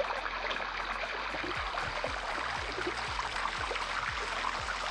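Shallow water running and trickling over the rock of the sticky waterfall, close to the microphone, as a steady rush.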